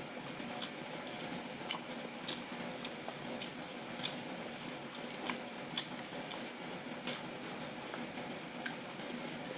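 Close-up eating sounds: fingers picking through oily noodles on a plate and chewing, heard as scattered sharp clicks and soft squishes at irregular moments, over a steady background hum.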